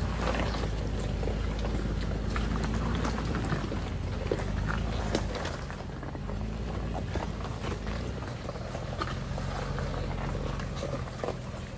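Toyota 4Runner engine running low and steady while crawling a trail, with scattered clicks and crunches from the tyres over rocks.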